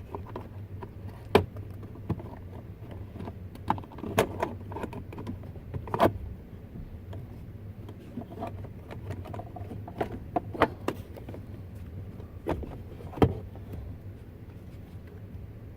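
Scattered sharp clicks and knocks of plastic trim being handled as the upper steering column cover is worked loose and lifted off, over a steady low hum.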